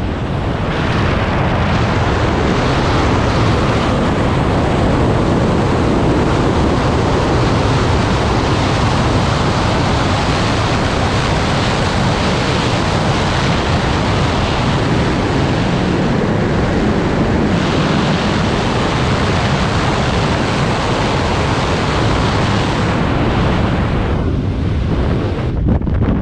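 Loud, steady rush of airflow buffeting a helmet-mounted action camera's microphone during a wingsuit flight.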